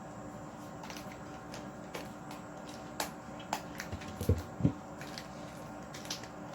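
Spatula stirring slime in a plastic container: scattered light clicks and scrapes, with two louder knocks against the container a little past halfway.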